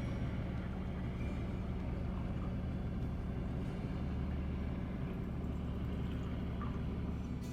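Trawler yacht's diesel engine running steadily, a constant low drone.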